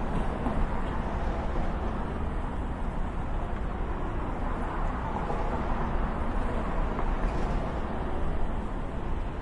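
Steady city traffic noise: a constant low rumble of passing vehicles, with a few faint clicks and knocks.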